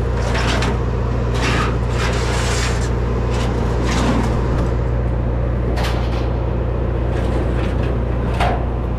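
Machinery running with a steady low hum, overlaid by short scrapes and clatters every second or two, one of the sharpest near the end.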